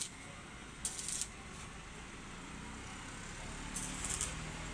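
Stick arc welding a sheet-steel patch onto a scooter's exhaust silencer: the arc sizzles steadily, with louder spells about a second in and again near the end.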